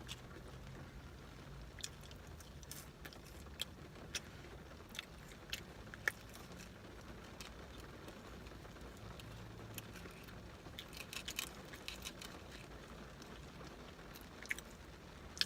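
Close-up mouth sounds of a person eating: chewing with scattered wet clicks and lip smacks.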